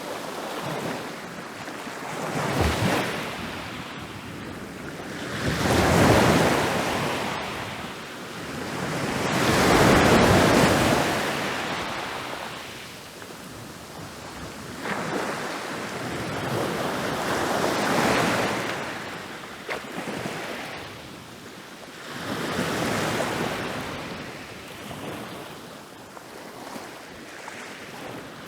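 Ocean waves rolling in and crashing on a beach: a rushing surge every four to five seconds, each swelling and fading, the loudest two in the first half.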